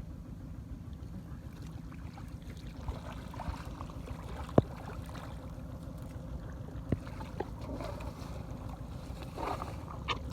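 Water sloshing and splashing in shallow water over a steady low wind rumble on the microphone, with a sharp click about four and a half seconds in and another near seven seconds.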